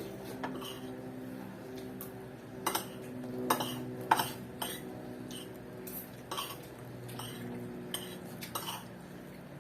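Cutlery clinking and scraping against plates and food containers during a meal, in irregular sharp clicks.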